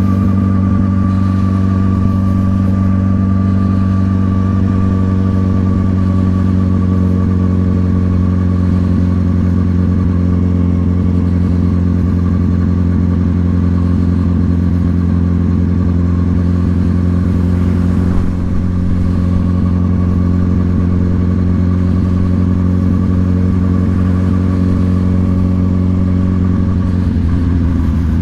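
Motorcycle engine running at steady cruising revs, with the pitch dropping slightly near the end as it eases off.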